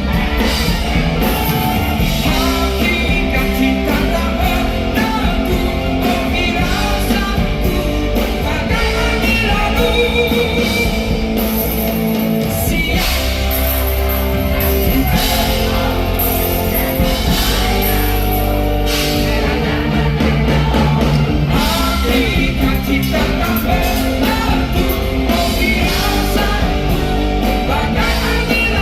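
Live rock band performance with singing over amplified band backing.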